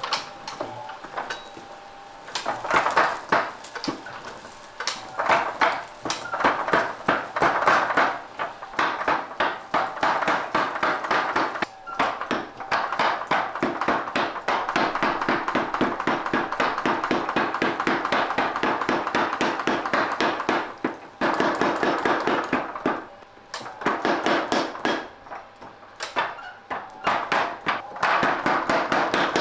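Mechanical power hammer pounding a red-hot steel billet, fast and rhythmic, with sparks of scale flying. The hammer pauses briefly a few times in the second half.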